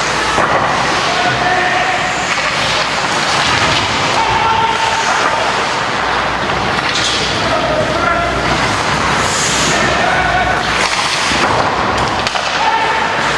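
Spectators talking and calling out in an ice hockey rink, over a steady crowd din.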